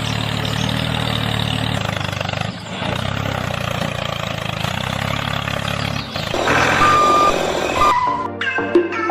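A vehicle engine running steadily with a low hum, which stops about six seconds in. A short steady beep follows, and music starts near the end.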